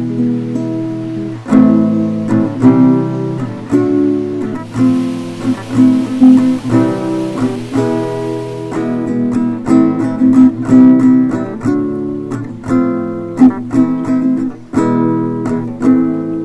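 Background music on acoustic guitar: chords plucked and strummed in a steady rhythm.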